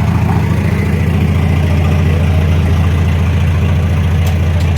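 A vehicle engine running steadily with a deep, even hum, and a few sharp clicks near the end.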